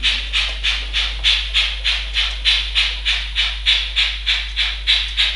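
Minitrix N-scale BR 01 steam locomotive's sound decoder playing a steady steam chuff from the locomotive's small loudspeaker, about three hissing beats a second, over a low steady hum.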